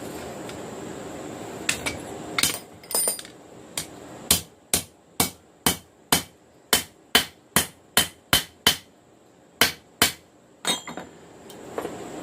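Hand hammer striking hot steel on an anvil: a few scattered knocks, then a steady run of about a dozen sharp, ringing blows, two or three a second, with a brief pause near the end of the run. A steady rushing noise is there before the hammering and comes back near the end.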